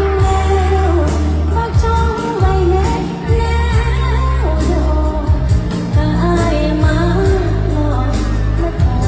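A woman singing a Thai luk thung song into a microphone, live over a loud backing track with a heavy bass line and a steady beat.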